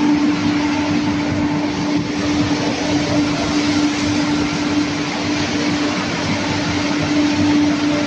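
Turnover basket washing machine running: a steady hiss of water jets spraying inside the wash tunnel over a constant machine hum.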